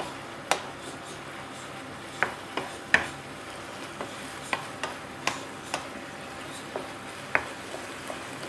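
Minced beef sizzling in a frying pan as a wooden spoon stirs it, the spoon knocking and scraping on the pan at irregular moments over a steady hiss.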